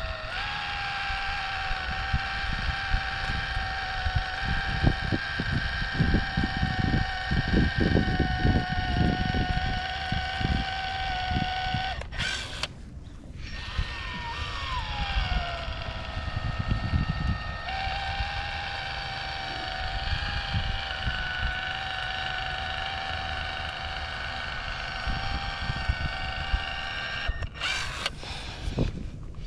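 An electric motor whining steadily in two long runs. Each run starts higher and drops in pitch as it settles, with a short stop about twelve seconds in and another near the end.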